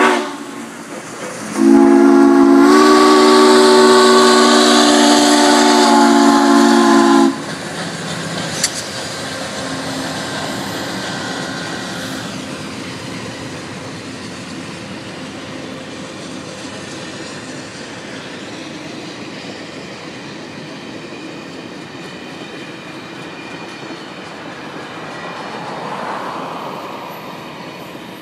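Southern Pacific 4449 steam locomotive sounding its chime steam whistle in one long, loud blast of about five seconds, starting about two seconds in. Then its passenger cars roll past with a steady rumble and clatter on the rails that slowly fades.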